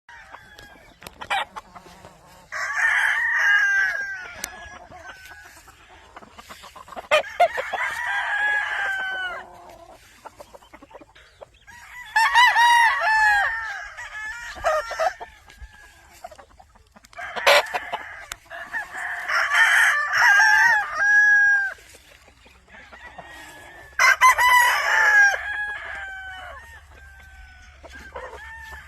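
Several gamefowl roosters crowing one after another, about five crows spaced a few seconds apart, some overlapping, with quieter clucking between them.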